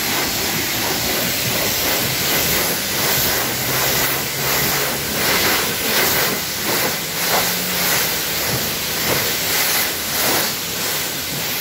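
Water spraying onto a car's paintwork during a rinse: a steady hiss that swells and fades as the spray sweeps back and forth across the panels.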